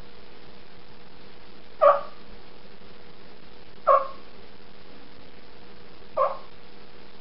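Wild turkey hen clucks made on a diaphragm mouth call: three short single notes, about two seconds apart.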